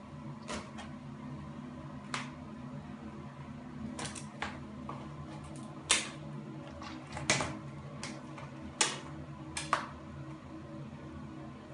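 Stiletto heel pressing and punching into an orange on a tile floor: a scattered series of sharp clicks and cracks, the loudest in the second half.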